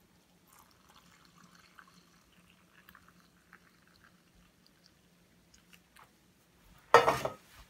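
Water poured in a thin stream into a plastic tub of dry oat mix, a faint trickle with small drips. About seven seconds in comes one short, loud knock.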